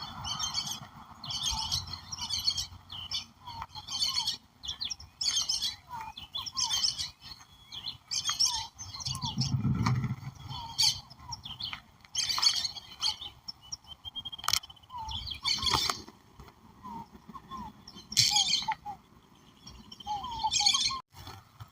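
Several wild birds singing and calling together: a bright, fast song phrase repeated every second or two over softer short chirps. A brief low rumble comes about halfway through.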